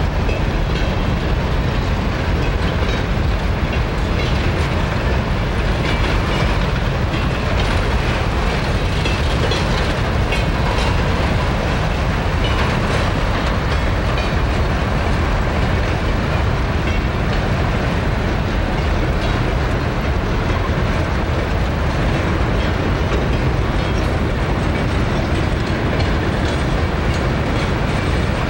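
Long freight train of empty grain wagons rolling past steadily, with steel wheels rumbling and clacking on the rails.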